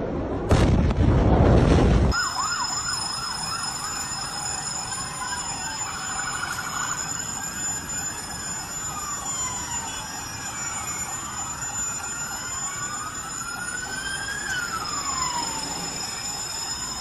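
A loud burst of rushing noise lasts for about a second and a half, then several emergency sirens wail and yelp at once. Their pitches sweep up and down, some fast and some slow, over two steady high-pitched tones. They sound in the aftermath of the explosion at the port.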